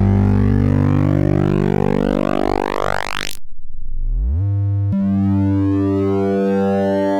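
Synthesized oscilloscope-music waveforms: a buzzy drone whose overtones sweep upward and break off about three and a half seconds in, then a low tone gliding up. About five seconds in, a steady buzzy drone with many overtones starts abruptly.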